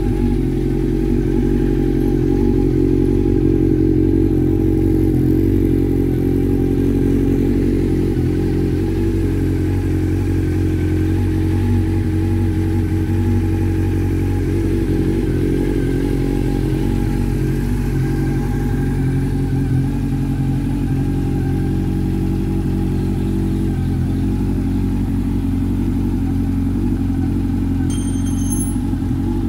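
Honda CB400 Super Four's 399 cc inline-four engine idling steadily in neutral.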